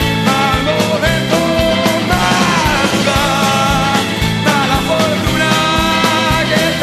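Rock and roll band recording, with drums keeping a steady beat under bass and wavering lead lines.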